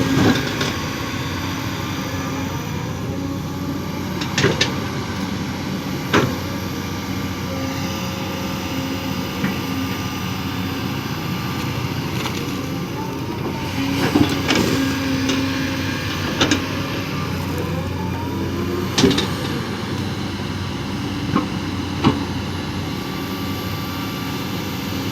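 Kobelco SK220 excavator's diesel engine running steadily under work, with a sharp knock every few seconds.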